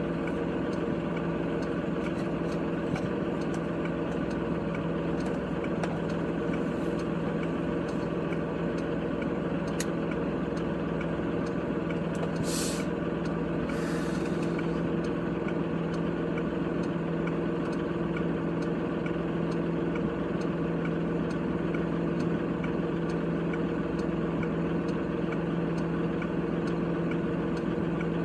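Kubota tractor's diesel engine running at a steady speed while plowing snow, a constant hum. Two brief hisses come about halfway through.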